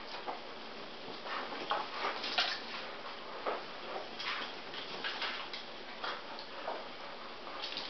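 A dog's claws clicking and scuffing on a tile floor while it wrestles with a fabric dog bed, the bed's cloth rustling: irregular light clicks and scrapes.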